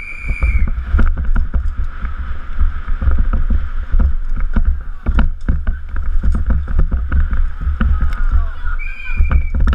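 Downhill mountain bike at speed under a helmet camera: wind buffets the microphone over a constant rattle and clatter of the bike on cobblestones and a wooden ramp. A short high squeal sounds right at the start and again near the end.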